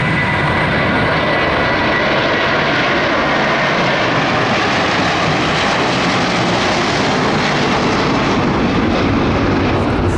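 Airbus A330-300's Rolls-Royce Trent 700 turbofans at takeoff thrust as the airliner rotates and climbs out: a loud, steady jet roar, with a high whine over it at first that fades away.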